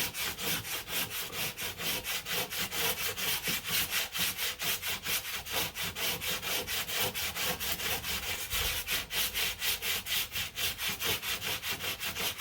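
100-grit sandpaper on a hand sanding block being rubbed back and forth over cured body filler on a car panel, in quick even strokes about four a second. The filler is being cross-sanded to level it to the panel's contour.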